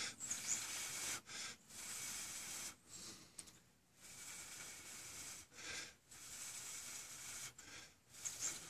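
A person blowing in long, faint breaths, one after another with short pauses, into a smouldering cotton fabric tinder bundle to feed air to the ember and make it grow.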